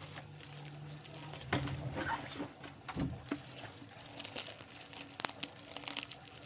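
Plastic packaging crinkling and rustling as it is handled, in irregular crackles, with a few sharper crackles along the way.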